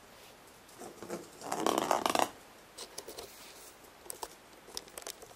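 A cat batting and scrabbling at a tennis ball on a wooden floor: a scuffling burst about one and a half seconds in, then scattered light taps.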